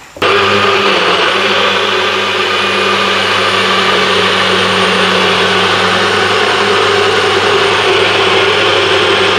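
Personal bullet-style blender running at a steady, even speed, pressed down on its motor base to blend a drink. It starts abruptly just after the beginning and runs loud and unchanging.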